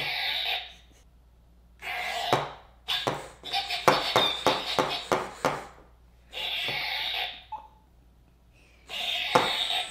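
Squeakee balloon-dog toy playing its electronic dog sounds through its small speaker, in about five separate bursts a second or so long with near-silent gaps between them. A run of rapid clicks and knocks comes in the middle.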